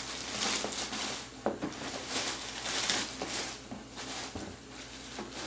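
Rustling and crackling from things being handled in the hands, with a few soft knocks, the loudest about one and a half seconds in.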